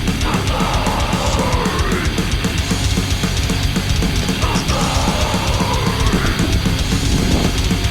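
Background music: a fast, loud heavy metal track with busy drumming.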